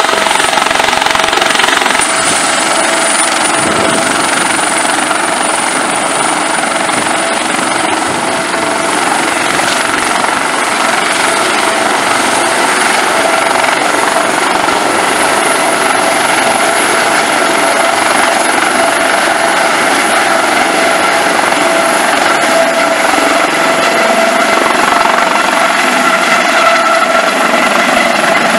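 Air-medical helicopter with a fenestron tail running on the pad, its rotor turning steadily with a high turbine whine that slowly climbs in pitch as power comes up. It lifts off near the end.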